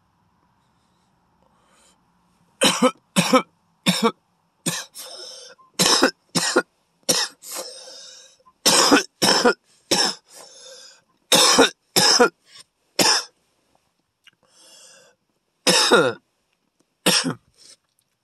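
A man's coughing fit: about twenty hard coughs in bouts, beginning a couple of seconds in, with breaths drawn between them. The smoke from a hit of cannabis from a glass pipe was harsh.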